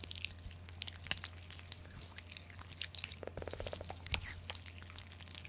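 Close-miked ASMR trigger sounds: a scattered run of small, crisp clicks and crackles, with a brief quick rattle a little past the middle.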